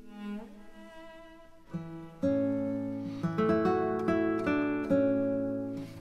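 Instrumental background music: a melody of separately struck notes, joined about two seconds in by a low bass line that makes it louder.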